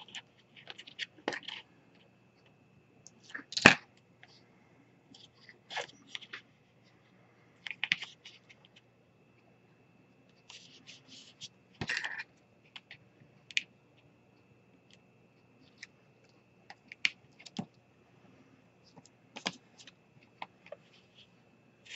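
Scattered small clicks, taps and paper rustles of hands pressing satin ribbon and double-sided score tape onto a cardstock panel, over a faint steady hum.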